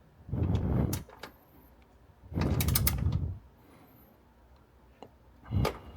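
1/4-inch ratchet clicking in two quick runs and a short third one, as it is worked back and forth to tighten a bolt.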